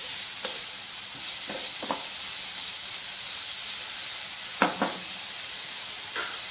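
Chopped carrots, green beans, onion and green chillies sizzling in hot oil in a pan, with a spatula scraping through them in a few short strokes, two close together about four and a half seconds in.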